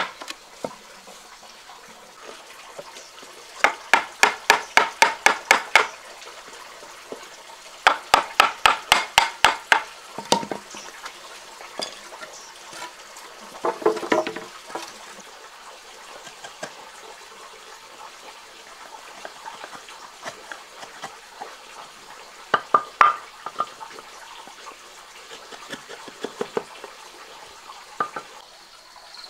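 Two quick runs of sharp, evenly spaced knocks, about four or five a second, each lasting about two seconds, then a few scattered single knocks.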